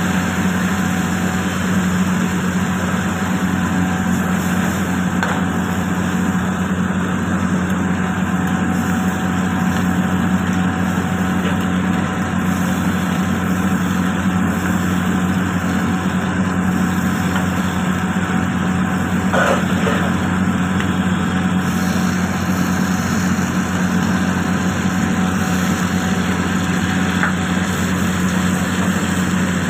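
Crab frying in bubbling oil in a pan, a steady sizzling hiss over a constant low hum.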